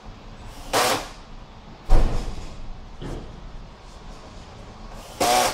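Two short whirring bursts of a cordless drill driving hinge screws into a cabinet door, one about a second in and one near the end. Between them comes a loud, sharp knock, followed by a fainter one about a second later.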